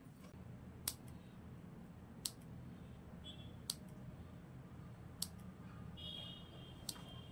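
Scissors snipping through slices of soft white bread, a sharp click at each cut, five times about a second and a half apart, over a faint low hum.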